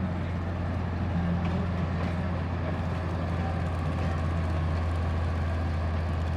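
Train going by with a steady low engine drone and no rhythmic beats.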